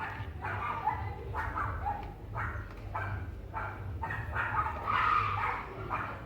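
A dog barking repeatedly, a short bark about once or twice a second.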